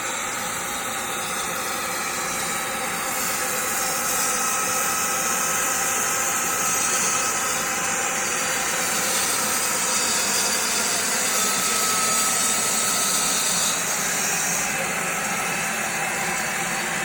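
Steady machine noise with a hiss that grows stronger from about three seconds in and eases back near the end.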